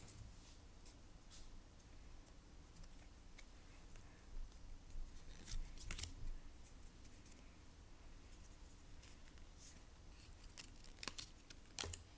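Pokémon trading cards being handled and slid one behind another: quiet, scattered scrapes and flicks of card stock, a little louder around five or six seconds in and again near the end.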